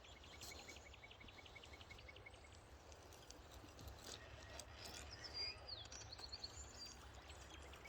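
Quiet riverside ambience: a low steady rumble, a run of quick, regular ticks, about eight a second, for the first couple of seconds, and a bird chirping faintly a few times midway.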